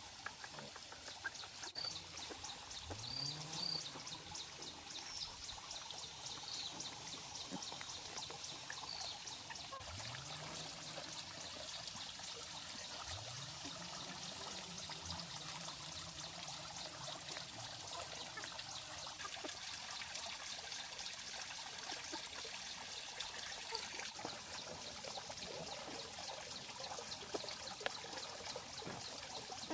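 Water trickling and pouring steadily, with three short low rising tones in the first half.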